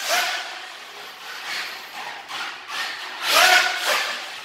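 RC truck's electric motor whining as it is driven hard, rising and holding twice, with tyres scrabbling over rough ground.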